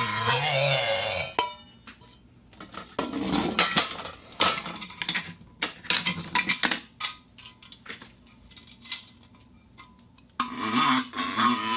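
Iron plate being struck and scraped: a run of irregular metallic clanks and scrapes, some ringing briefly. A wavering pitched sound is there in the first second and comes back near the end.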